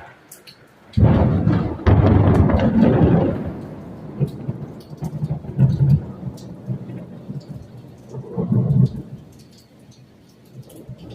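Thunder during a rainstorm: a loud low rumble breaks in suddenly about a second in and rolls away over a few seconds, with a second swell near the end, over the steady patter of rain.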